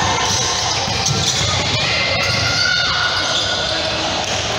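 Basketball game play on a hardwood gym floor: a basketball bouncing, sneakers squeaking and players' voices in a large hall.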